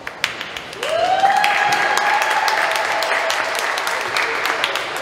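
Crowd applauding with scattered sharp claps, and one long cheer that rises in pitch about a second in and then holds for a couple of seconds.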